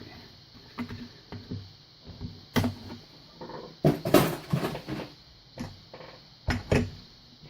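Tools and objects being moved about and set down on a workbench: scattered clicks and knocks, with a sharp knock a few seconds in, the loudest clatter about four seconds in, and two knocks near the end.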